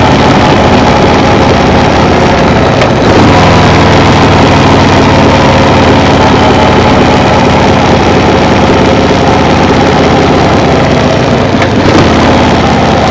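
Engine running steadily with a loud, even low drone, with a faint click about three seconds in and another near the end.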